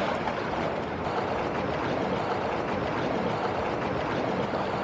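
Steady wind and sea noise: wind buffeting the microphone over choppy water, an even rush with no distinct events.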